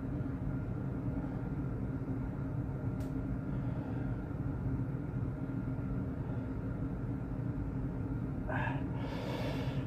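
Steady low mechanical hum with a faint high tone above it, and a brief breathy hiss near the end.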